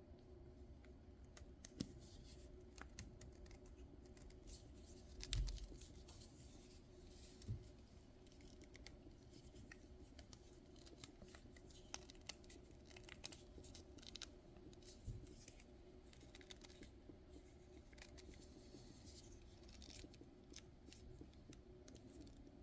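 Faint, scattered clicks, scrapes and a few light knocks of small objects being handled on a work surface, over a faint steady hum.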